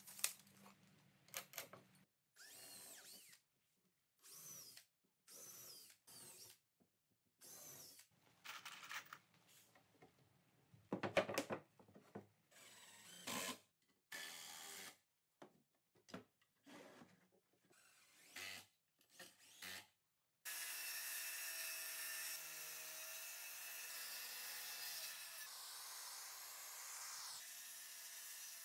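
A string of short bursts from a cordless drill/driver driving screws into a 2x4 and plywood frame, each about a second long with short gaps between. Then, about 20 seconds in, a Makita 7-1/4-inch circular saw runs steadily through a sheet of plywood for about eight seconds.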